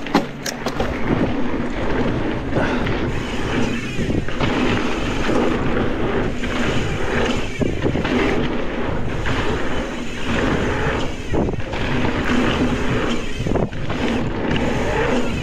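Wind buffeting the microphone of a camera on a moving mountain bike, a steady rushing and fluttering rumble with no break.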